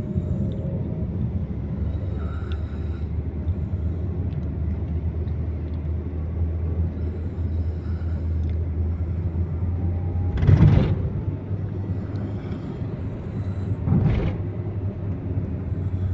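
Steady low engine and road rumble inside a moving Toyota car's cabin. Two brief louder surges of noise come through, about ten and fourteen seconds in.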